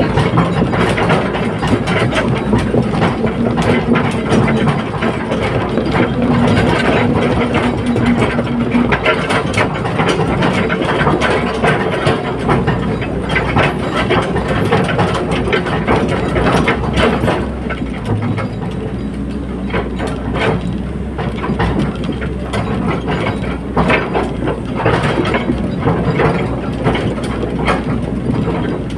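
Hydraulic excavator at work: the diesel engine runs steadily under a dense, irregular clatter of metallic clanks and knocks from the working machine.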